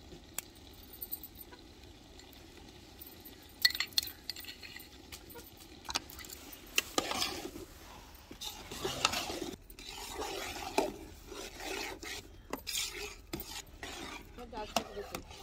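Metal ladle stirring thick, cooked-down carrot halwa in a large metal pot, scraping the bottom with irregular clinks and knocks against the pot. It starts a few seconds in.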